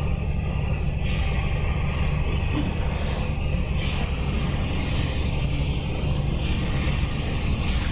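Steady low rumble with a hiss above it, unchanging throughout, with no distinct events.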